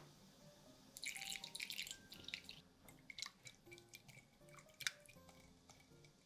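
Vegetable oil poured into warm milk in a glass bowl, a short splashing pour about a second in, then a wire whisk stirring the mixture, its wires clicking and ticking against the glass.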